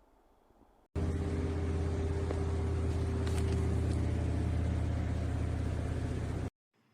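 Robot vacuum cleaner running: a steady motor hum with a rush of noise, starting abruptly about a second in and cutting off suddenly near the end.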